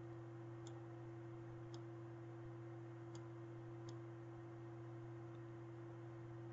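Computer mouse clicking four times, faintly, over a steady low background hum.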